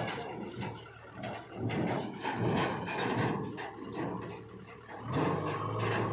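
Diesel engines running: a tractor pulling away with its raised tipping trolley, and a JCB 3DX backhoe loader working beside it. The engine sound swells about five seconds in.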